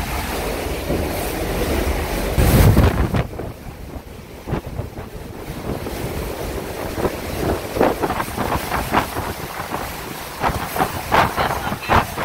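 Category 5 Hurricane Dorian's wind blowing hard and buffeting the microphone, heaviest in a gust about two and a half seconds in, then easing. From about seven seconds on, a quick run of short, sharp hits cuts through the wind.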